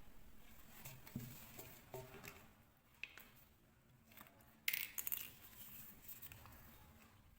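Faint, scattered clinks and taps of small hard objects being handled, the loudest about three-quarters of the way through.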